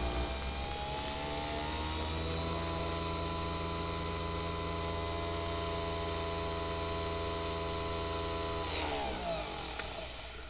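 A coffee maker's electric motor humming steadily, its pitch climbing a little in the first two seconds, then winding down and stopping about nine seconds in.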